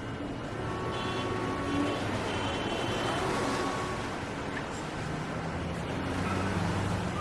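City street traffic ambience: a steady rush of passing vehicles, with a short car-horn-like tone about a second in and a low engine hum coming up in the second half.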